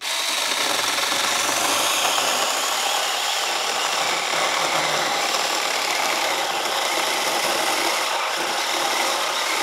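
Cordless battery-powered mini chainsaw running at full speed and cutting through a tree branch, starting suddenly and holding a steady, even sound throughout, with only a little hesitation in the cut.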